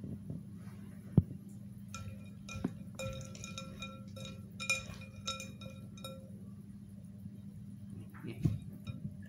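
A knife clinking and tapping against a bowl while food is cut up in it, a run of ringing clinks between about two and six seconds in. There is a sharp knock about a second in, over a steady low hum.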